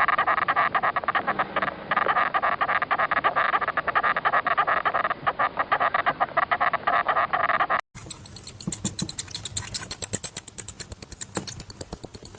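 An animal's rapid pulsing calls. About eight seconds in they cut off and give way to a different fast, rhythmic clicking sound.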